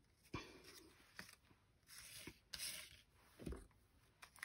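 Near silence with a few faint rustles and light taps of paper and card pieces being picked up and moved about on a tabletop.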